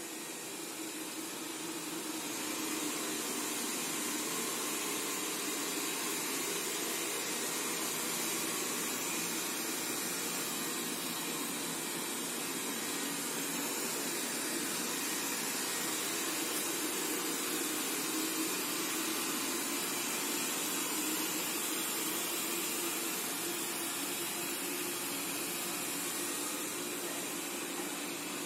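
Robot vacuum cleaner running, a steady even whir with a hiss of its suction fan.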